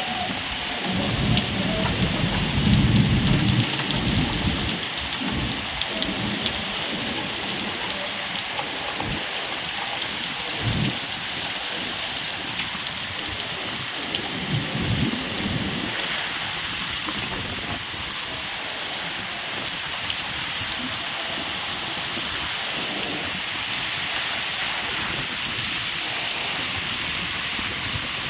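Steady, heavy rain hissing and pattering on surfaces, with a few low rumbles. The strongest rumble comes about two to four seconds in, and shorter ones come near eleven and fifteen seconds.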